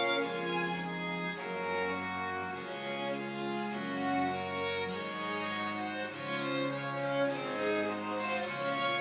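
Background music of bowed strings, violin and cello playing sustained notes that change about every second.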